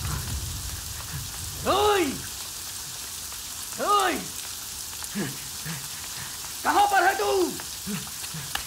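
Heavy rain pouring steadily. A voice gives long wordless cries over it, each about half a second, rising then falling in pitch, roughly every two to three seconds.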